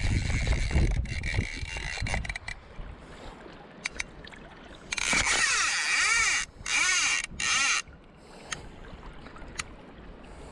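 Fly reel's click-and-pawl drag buzzing in three bursts about halfway through, its pitch rising and falling as a hooked Atlantic salmon pulls line off the spool. A few single clicks come before and after, and a low rumble fills the first couple of seconds.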